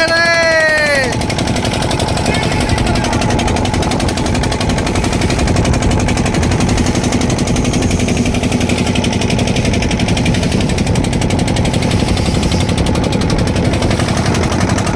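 Fishing boat's engine running steadily with a rapid, even chugging. A short falling-pitched call is heard at the very start.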